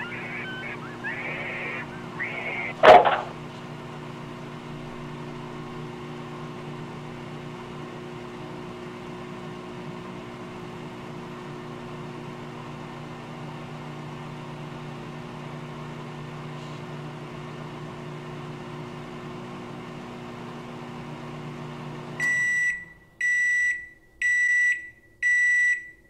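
Microwave oven running with a steady hum, then four end-of-cycle beeps near the end as the timer runs out. In the first few seconds there are brief high-pitched squeals and a single sharp pop, the loudest sound here.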